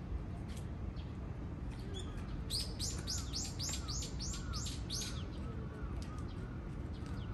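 A small songbird sings a fast run of about ten sharp, high, descending notes, roughly three or four a second. The song starts a couple of seconds in and lasts nearly three seconds, over a steady low background rumble.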